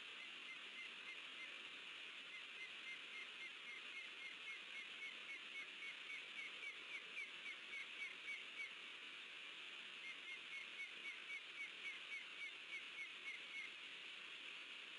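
An osprey giving a rapid run of short, sharp alarm calls, about three a second, faint over a steady hiss; the calls pause for a second or so midway, then resume and stop near the end.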